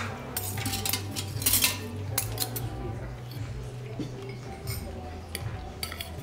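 Cutlery clinking and scraping on plates during a meal, many short irregular clicks, over a low steady hum.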